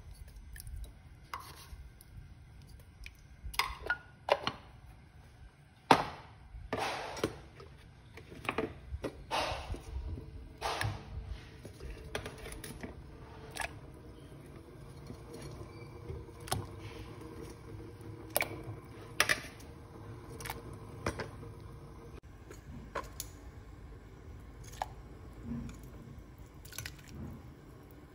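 Irregular knocks and clinks of kitchen work at a large stainless-steel pot of water as salt, daikon radish and carrot pieces go in. The sharpest knock comes about six seconds in, and the sounds thin out after about twenty-two seconds, leaving a low steady hum.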